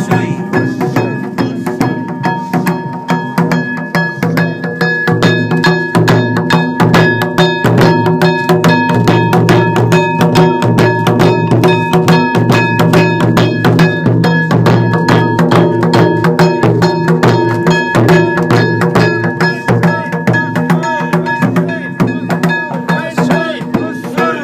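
Yamakasa float festival music: taiko drums beaten together with small metal hand gongs clanged in a fast, even, unbroken rhythm, the gongs leaving a steady ringing tone.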